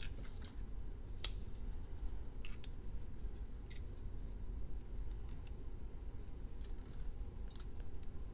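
Scattered small metallic clicks and scrapes from handling an ASSA Max+ lock cylinder and its key, over a steady low hum.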